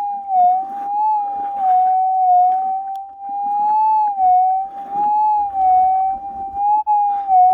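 Minelab GPZ 7000 metal detector's continuous threshold tone, wavering slightly up and down in pitch, over intermittent scraping and rustling of dirt and gravel. The wavering is ground noise, which the detectorist thinks may come from a combination of wet clay and hot rocks.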